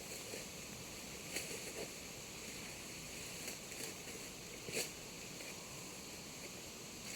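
Faint steady hiss with a few short soft clicks or rustles, the strongest a little before five seconds in.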